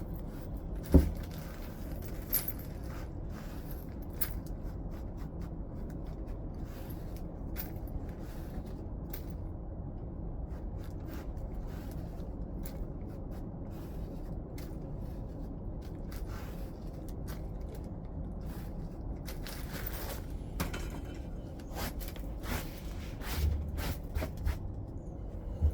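Flintknapping: stone being worked by hand, with scraping and scattered sharp clicks and ticks as flakes come off, a louder knock about a second in and several knocks near the end.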